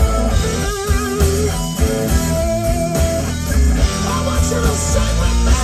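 Live rock band playing: electric guitars over bass and drums, with held guitar notes that waver in pitch.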